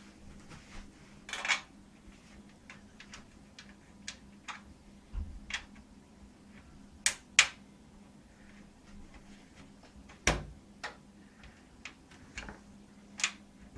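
Irregular clicks, taps and knocks of metal thumb screws and a steel PC side panel being handled and fitted, as the screws are fiddled into place. Three sharper knocks stand out, two close together about seven seconds in and one about ten seconds in. A faint steady hum lies underneath.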